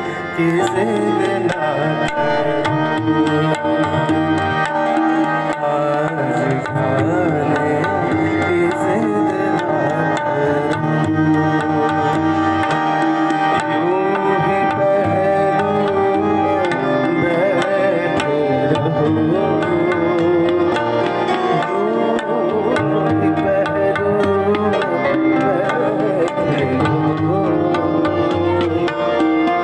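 Live ghazal accompaniment: a tabla plays a continuous rhythm under an acoustic guitar and other pitched melody lines.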